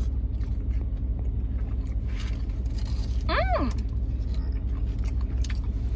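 Steady low rumble of a car's cabin with the engine running, with a brief rising-and-falling vocal sound about halfway through.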